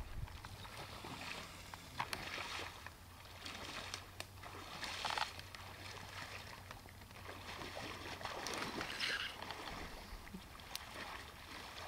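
Faint swishing and sloshing of a hunter in waders wading through reeds and shallow marsh water, a soft swish every few seconds over a low steady hum.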